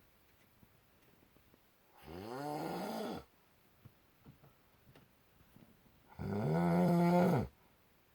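A man snoring loudly: two long snores about four seconds apart, the first rising in pitch, the second held on one pitch and dropping away at its end.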